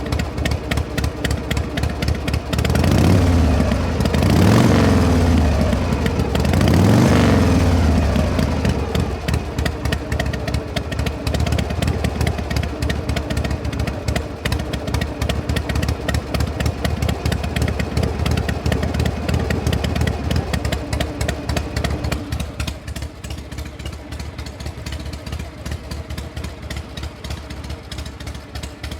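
Combustion engine idling with a rapid, even exhaust pulse, revved three times a few seconds in, the pitch rising and falling back each time. At about 22 seconds the idle drops quieter and runs on.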